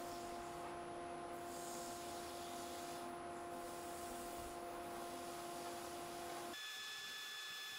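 A wood lathe and dust extractor running steadily, with abrasive paper hissing against the spinning wooden platter as it is hand-sanded. Near the end the steady hum drops away abruptly, leaving a fainter hiss.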